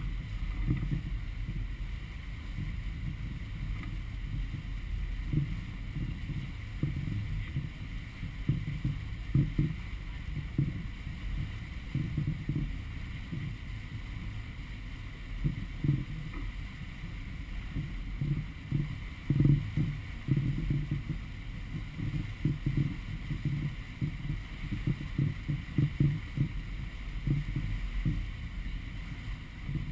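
Powerboat running underway: a steady low engine drone, with irregular gusts of wind buffeting the microphone.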